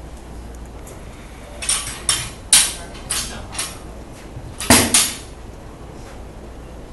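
Metal clinks and clanks of weight plates being slid onto a steel barbell sleeve and fastened: a string of about seven sharp clinks, the loudest two close together just before five seconds in.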